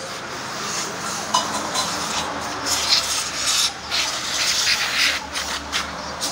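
Aerosol brake cleaner sprayed in short, uneven bursts at a scooter's rear brake drum and hub, with a few brief squeaks.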